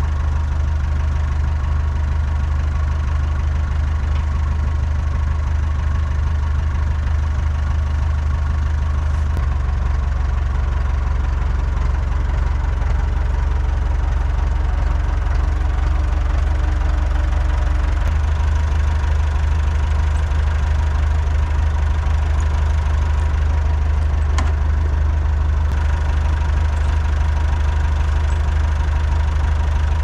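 Massey Ferguson tractor's Perkins 4.203 four-cylinder diesel running steadily at idle. Its note shifts slightly twice, about a third and about two thirds of the way through.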